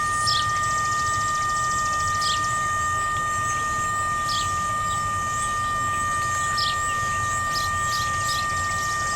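Whelen WPS-3016 electronic tornado siren buzzing, a steady unchanging two-tone sound instead of its test signal: the siren is malfunctioning, which the recordist guesses is because it could not rotate to its intended position.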